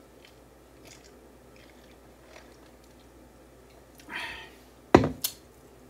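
Faint mouth sounds of sipping a drink through a straw, then a short breath and two sharp knocks about five seconds in, as a tumbler is set down on the table.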